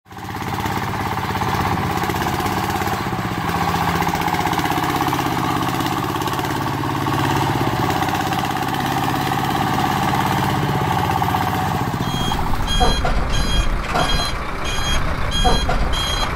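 Steady whirring hum of a small model truck's electric drive motor. About twelve seconds in, a regular high beeping pattern, about two beeps a second, starts over it with a deep bass underneath.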